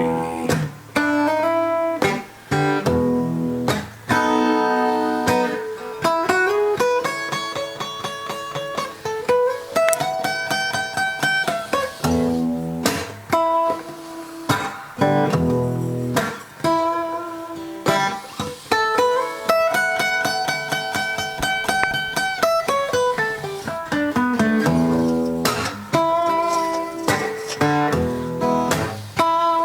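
Instrumental break of a blues song on guitar: single notes picked between strums, several of them sliding up or down in pitch.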